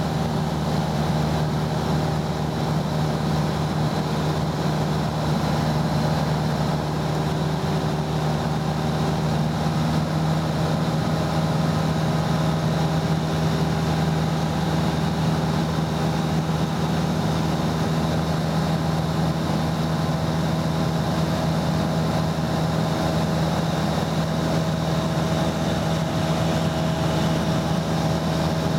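Aircraft engine running at steady cruise power: a constant low drone with an even rushing noise over it, unchanging throughout.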